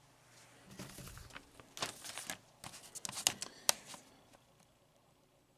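Paper rustling and crinkling as sheets are handled, with a couple of sharp clicks about three seconds in.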